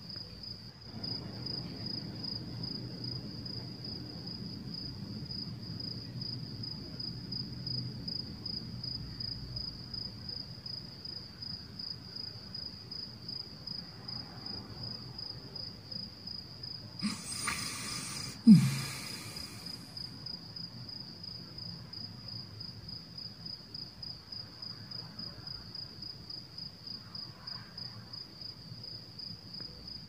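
A cricket trilling steadily at one high pitch over a low rumble. A little past halfway a brief rush of noise ends in a single sharp thump, the loudest moment.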